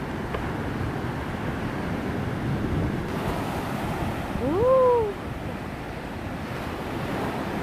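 Surf breaking and washing up the sand at the shoreline, with wind on the microphone. About halfway through, a single short call rises and then falls in pitch, the loudest sound.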